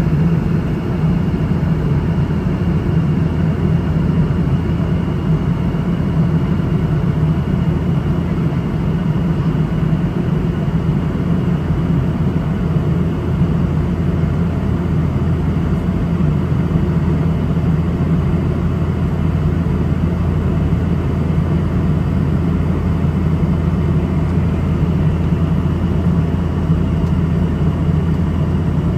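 Cabin noise inside a Boeing 717-200: the steady low drone of its two rear-mounted Rolls-Royce BR715 turbofans and the airflow, unchanging throughout.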